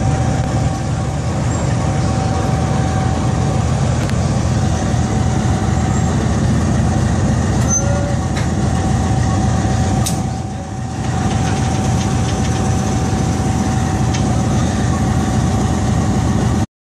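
Pakistan Railways RGE-20 diesel locomotive engine running steadily with a deep rumble and a constant high whine over it, easing off briefly about two-thirds of the way through.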